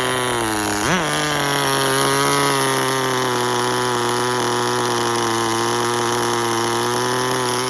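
Tamiya TGS-R nitro RC car's small two-stroke glow engine idling steadily, with one quick blip of revs about a second in.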